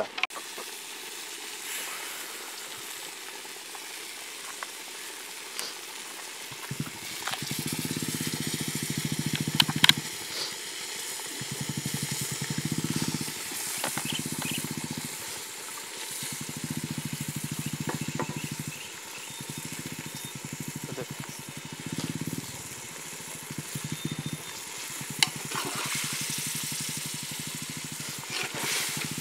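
Mutton curry simmering and sizzling in a metal pot, with the metal ladle clinking against the pot now and then. A low engine-like hum comes and goes through the middle and is louder than the cooking.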